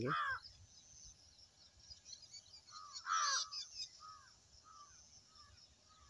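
A crow cawing: one louder harsh caw about halfway through, then four or five shorter caws, each fainter than the last, about half a second apart.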